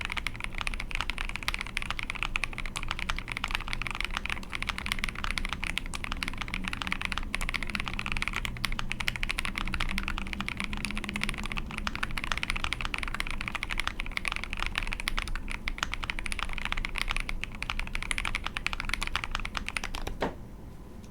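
Continuous fast typing on a mechanical keyboard: an ai03 Polaris with a POM plate, Kinetic Labs Husky linear switches lubed with Krytox 205g0, and ePBT keycaps. It stops with one last keystroke near the end.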